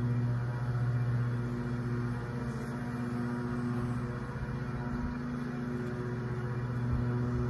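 A package of honeybees humming, with thousands of bees clustered on the screened box and flying around it: a steady, low, many-toned drone that wavers slightly.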